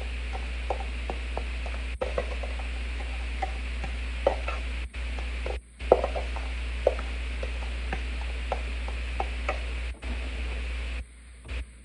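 Metal spoon stirring a dry flour and breadcrumb coating in a metal bowl, with scattered light clinks and scrapes, over a steady low hum.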